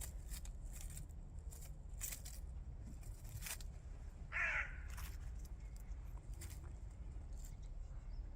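A single harsh bird call, about half a second long, a little past the middle, over a steady low rumble and scattered faint clicks.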